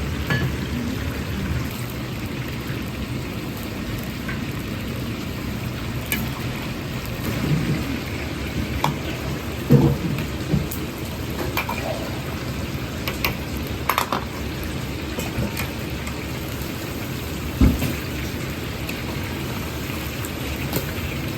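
Chicken wings deep-frying in a batch of hot oil: a steady crackling hiss, with a few short knocks and clinks of kitchen utensils scattered through it.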